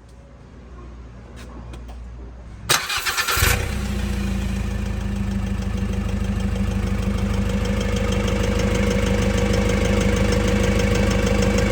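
Nissan Navara D40 engine cranked by the starter for under a second about three seconds in, catching and settling into a steady idle with a fast even ticking.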